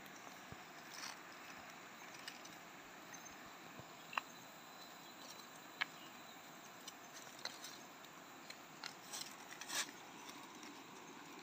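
Faint rustling in leaf litter with a few sharp little snaps, as wild mushrooms are picked by hand from the forest floor. The snaps are scattered, and the rustling thickens near the end over a steady faint hiss.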